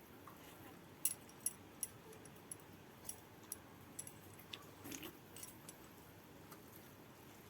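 Close-up eating sounds: a string of small, sharp clicks and cracks at irregular intervals, thickest in the first two thirds, over a quiet background.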